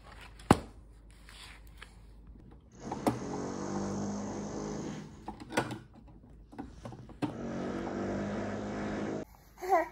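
A small motor-driven machine running in two bursts of a couple of seconds each, with a steady hum under a noisy whir, after a single sharp click about half a second in.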